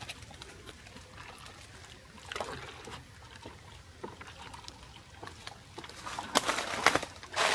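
Liquid biofertilizer trickling in a thin stream from a stainless steel bucket into a plastic bucket, with a few louder clatters near the end.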